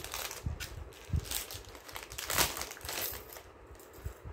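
Packaging crinkling and rustling as it is handled, in short irregular crackles with a few soft knocks.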